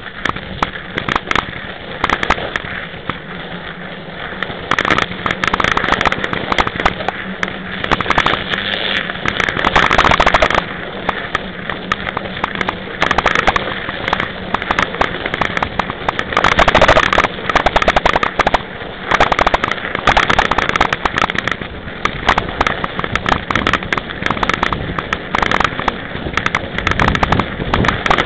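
Knobby 26-inch mountain-bike tyre rolling over snow: a dense, continuous crackling crunch, a little louder from about five seconds in.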